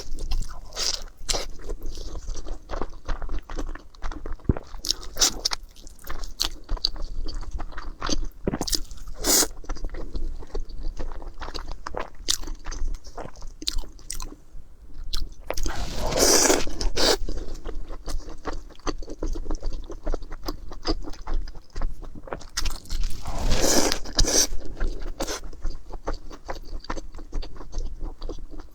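Close-miked eating: a person biting and chewing crunchy food, a run of short sharp crunches with two longer, louder stretches of crunching about 16 and 24 seconds in.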